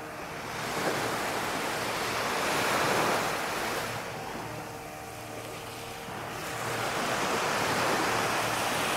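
Sea surf washing onto a sandy beach, swelling and fading twice as the waves come in.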